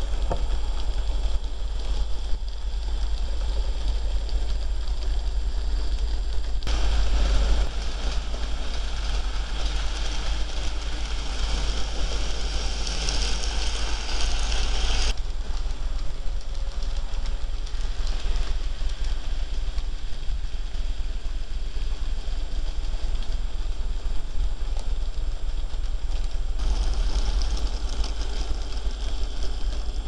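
N-scale model trains running on the layout's track, a light mechanical clatter of small wheels on rail, louder for several seconds in the middle, over a steady low hum.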